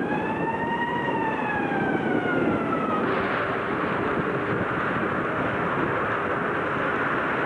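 A siren-like wail that rises, then slowly falls and cuts off about three seconds in, over a steady background rush.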